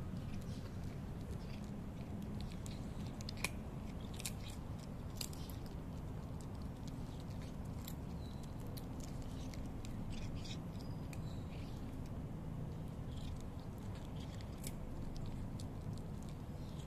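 A cat chewing dry kibble: irregular short crunches and clicks, one sharper crack about three and a half seconds in, over a steady low background rumble.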